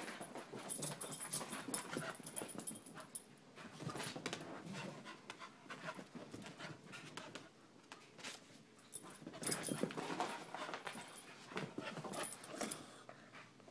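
A puppy and a chihuahua play-fighting: irregular scuffling with short, excited dog vocalizations. There is a quieter lull about halfway through before the tussle picks up again.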